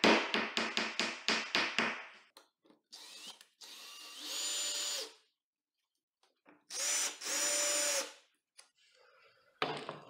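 Claw hammer tapping a plastic wall anchor into the wall, about three and a half blows a second for the first two seconds. Then a power drill/driver runs in two short spells, driving the screws that fix the remote control's plastic holder bracket to the wall.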